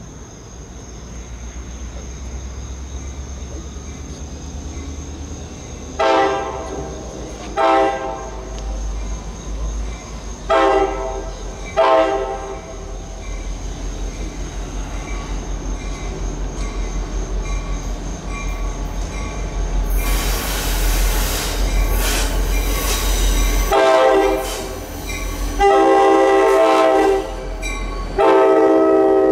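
EMD GP40PH-2 diesel locomotive approaching with its multi-note horn: four short blasts in two pairs, then three longer, louder blasts as it draws close, over the growing rumble of the diesel and wheels. A burst of rushing noise comes about two-thirds in, and crickets chirp until the train is near.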